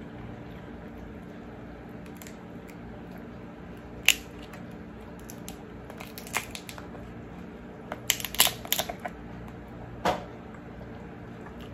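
Cooked king crab leg shell being snapped and pulled apart by hand: separate sharp cracks a few seconds apart, then a quick run of crackles near the end, over a steady low room hum.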